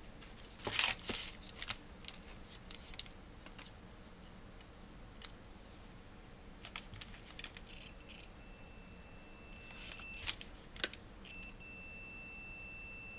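Gloved hands handling multimeter test leads and wiring on crumpled paper: rustling and small clicks, loudest about a second in. Past the middle a steady high-pitched electronic beep comes on, breaks off briefly with a couple of clicks, then resumes.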